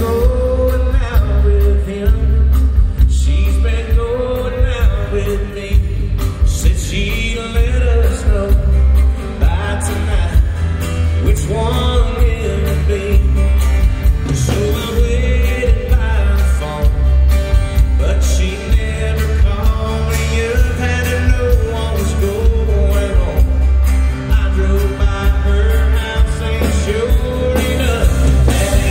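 Live country band playing with a male lead vocal: strummed acoustic guitars, electric bass and drums under the singing, with a heavy, pulsing low bass, heard through the arena's sound system.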